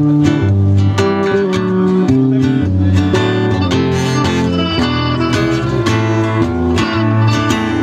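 Live band playing: a strummed acoustic guitar with electric bass and electric guitar, the bass notes and chords changing about every half second.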